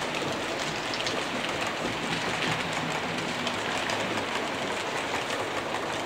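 Model railway train running along the track past the microphone: a steady hissing rumble of wheels on rail with faint clicks.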